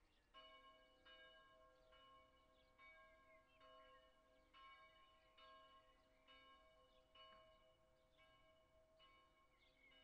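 Church bell ringing at noon, faint and heard from a distance. It starts about half a second in and strikes steadily a little more often than once every second, each stroke ringing on into the next. Birds chirp faintly in the background.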